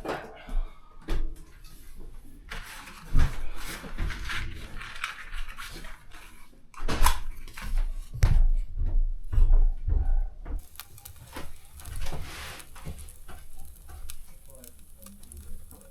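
Irregular knocks and clatter of firewood and a metal stove door being handled as a wood-fired sauna stove is loaded for lighting, with heavier thumps in the middle.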